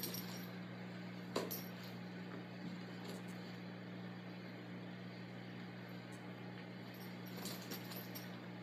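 A puppy playing with a plush toy on a rug, heard as a few faint clicks and light knocks: one sharp click about a second and a half in and a small cluster near the end. Under them runs a steady low hum.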